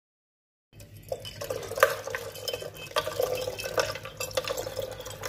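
Cold water being poured from a jug into a glass kettle of boiling tea leaves, splashing and trickling, with a steady low hum underneath. It starts about a second in and cuts off sharply at the end.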